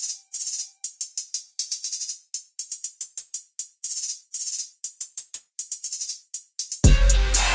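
Hip-hop instrumental beat in a stripped-down breakdown: only rapid, crisp high percussion ticks in a quick rhythm with fast rolls, the bass and kick dropped out. A faint held tone fades out about a second in, and the full beat with heavy bass and kick drum crashes back in near the end.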